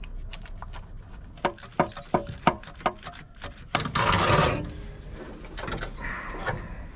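A socket ratchet clicking in short irregular strokes as spark plugs are screwed back into the truck engine, followed by a brief burst of rustling noise.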